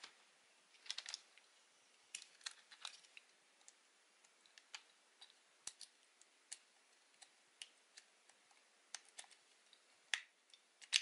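Scattered light clicks and taps of small plastic parts of a Soviet-era Agidel electric shaver being handled and fitted together, with slightly louder clicks near the end.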